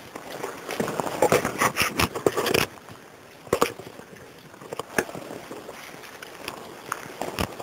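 Footsteps crunching and scraping over loose stones and rubble: a quick run of crunching steps in the first few seconds, then a few single crunches later on.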